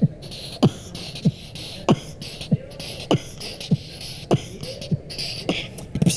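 Human beatboxing: a steady beat of deep mouth-made kick-drum sounds with a falling pitch, about one every 0.6 seconds, interleaved with hissy hi-hat and snare sounds.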